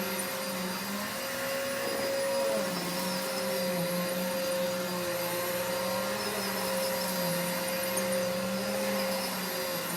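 Vacuum cleaner running steadily, a motor hum over the rush of suction. Its motor note dips briefly a couple of times.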